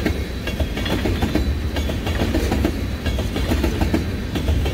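Loaded freight tank cars rolling past close by: a steady low rumble of wheels on rail, with scattered clicks as the wheels pass over rail joints.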